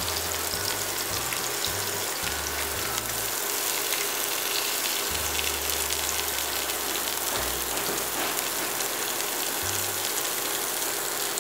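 King oyster mushroom halves sizzling steadily in hot oil in a nonstick frying pan over low-to-medium heat, with fine crackles of spitting oil.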